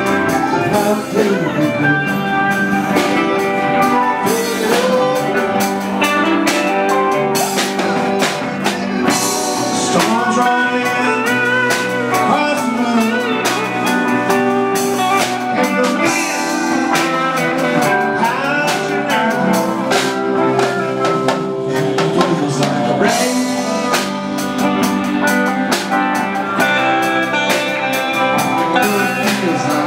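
Live blues band playing, with electric guitar.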